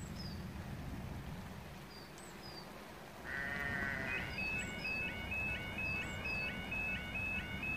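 Level crossing warning alarm starting about three seconds in as the crossing sequence begins: a brief wavering tone, then a fast, evenly repeating high warble. A small bird chirps repeatedly in the background.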